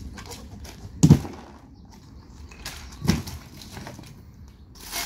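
Two heavy metallic knocks about two seconds apart, the first the louder, as a Trinity chrome wire shelving unit is tipped over and laid on its side onto a cardboard box, with a brief rustle near the end.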